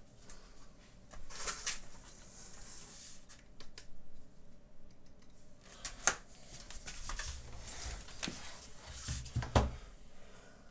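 Quiet handling noises of desk-lamp parts being picked up and moved: soft rustling and scraping with a few sharp clicks, the sharpest about six seconds in.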